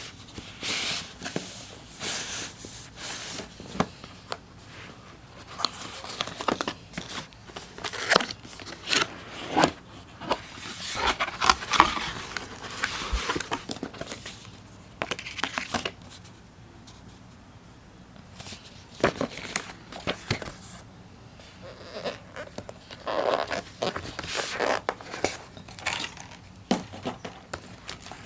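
A parcel being opened by hand: packaging torn and crinkled in irregular rustling bursts, with scattered sharp clicks and taps.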